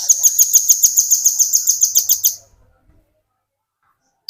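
Velvet-fronted nuthatch calling a fast run of high, sharp chips, about seven a second, stopping after two and a half seconds.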